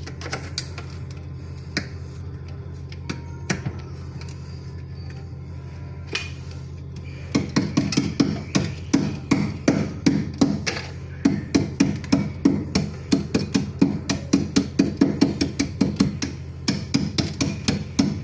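Rapid repeated hammer-like strikes, about four blows a second, starting about seven seconds in after a few scattered knocks and pausing briefly twice, over a steady low hum.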